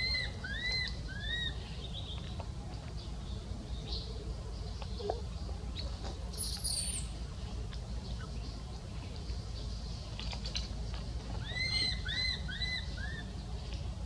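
Short, high, arched chirping calls from a small animal: three quick ones at the start and four more near the end. A steady low rumble runs underneath.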